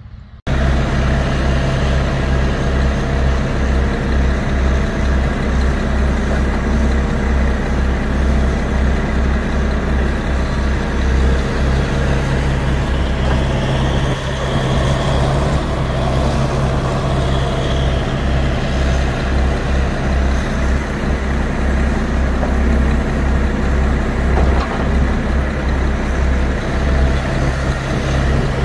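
Heavy diesel engines running steadily with a deep, even drone: a John Deere 160D LC excavator digging soil beside a dump truck.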